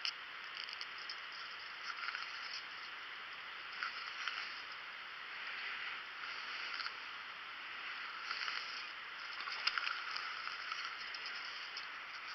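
Steady rushing of creek water, with a few soft rustles and clicks scattered through it.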